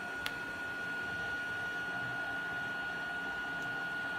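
Steady high-pitched electrical whine over a low machine hum from the benchtop lab equipment, with a single light click about a quarter second in.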